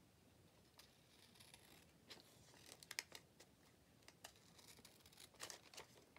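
Scissors cutting paper: faint, crisp snips in short runs along a marked line.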